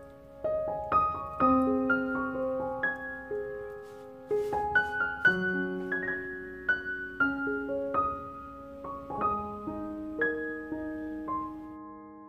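Background piano music: a melody of single notes, each ringing on and fading, about one or two a second.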